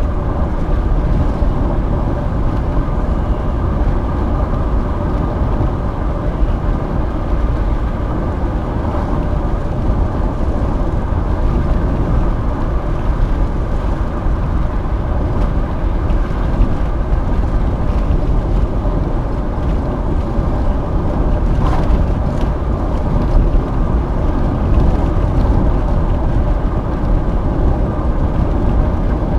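Steady cabin noise of a car driving at an even speed: a deep rumble of tyres on the road and engine, heard from a dash cam on the dashboard.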